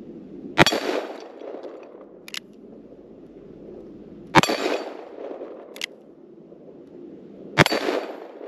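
Three shots from a 1963 three-screw Ruger Super Blackhawk revolver in .44 Magnum, fired about three to four seconds apart, each trailing off in an echo. Between the shots, a short sharp click as the single-action hammer is cocked.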